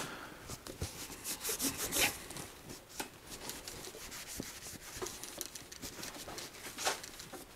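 A cloth rag rubbing back and forth along a Schwinn Sidewinder's frame tubes, wiping off sprayed-on furniture polish in quick, uneven strokes, with a few light knocks.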